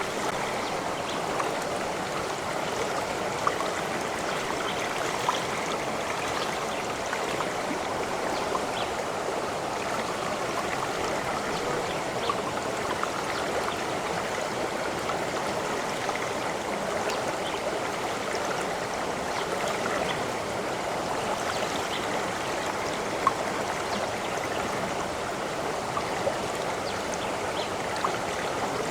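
Steady running water of a stream flowing over stones, with small splashes and droplet ticks here and there.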